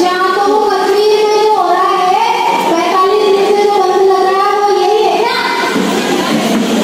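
A woman singing a Rajasthani folk song in long, high held notes, breaking off about five seconds in.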